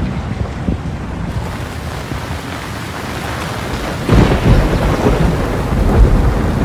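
Thunderstorm: steady rain hiss, then about four seconds in a loud, deep roll of thunder that rumbles for a couple of seconds and cuts off suddenly near the end.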